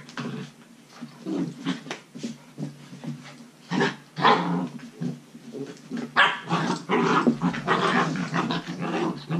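Belgian Malinois puppies growling and yapping in short, irregular bursts while play-biting. The bursts are loudest about four seconds in and run almost without pause from about six seconds on.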